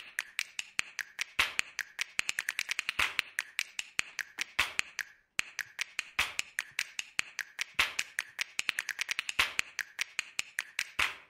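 Computer keyboard being typed on: quick, irregular key clicks in runs, with short pauses between them.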